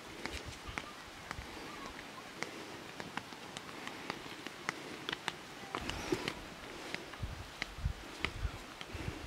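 Footsteps of people in sandals on a dry dirt footpath: irregular short scuffs and clicks, over faint outdoor hum, with a few low thumps of wind on the microphone.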